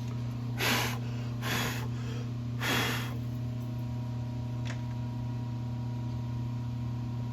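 A steady low hum, with three short breathy puffs of air in the first three seconds and a faint click a little later.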